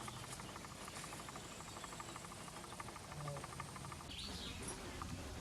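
Faint outdoor animal sounds: a rapid, even trill that fades out about three seconds in, then a short high chirp about four seconds in.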